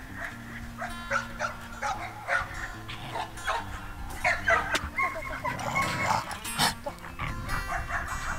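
Several Siberian huskies giving short barks in play, over background music with long held notes.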